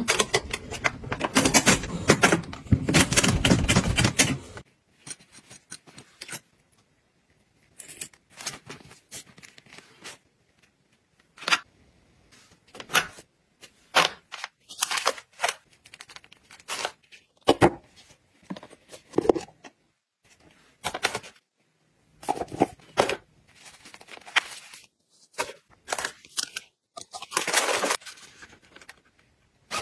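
A metal portable door lock clattering and scraping against a door frame's strike plate for the first four seconds or so. After that, scattered rustles, clicks and taps as small packaged items and boxes are handled and set into a fabric travel pouch.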